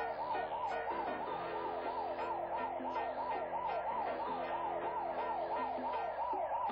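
Emergency vehicle siren in a fast yelp, its pitch sweeping up and down about three times a second, over background music.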